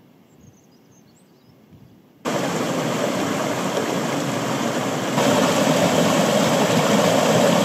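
After about two seconds of quiet, a swollen mountain stream rushing over rocks in a small cascade starts abruptly: a steady, close-up rush of water that gets louder about five seconds in. The stream is running high after heavy overnight rain.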